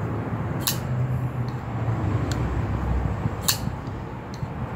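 Liner-lock folding knife being flipped open, the blade snapping into lock with sharp clicks, two loud ones about three seconds apart and a few lighter ones between, over a steady low wind rumble.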